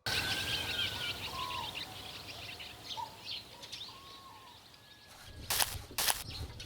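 Birds chirping and twittering over a steady outdoor hiss. Near the end come several sharp knocks in quick succession.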